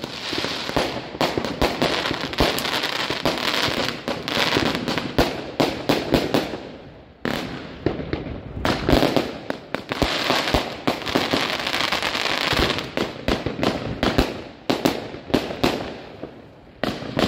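Zena Exploding Hymir firework cake firing: a dense stream of crackling pops over a steady hiss. It dies down about seven seconds in, starts up again, and fades once more near the end.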